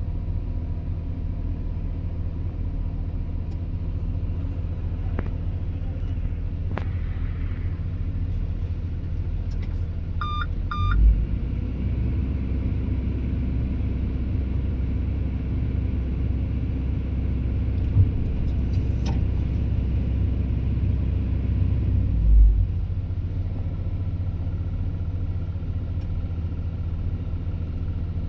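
Excavator's diesel engine running steadily, then working harder and louder for about eleven seconds in the middle before settling back. Two short beeps come just before the louder stretch, with a few knocks during it.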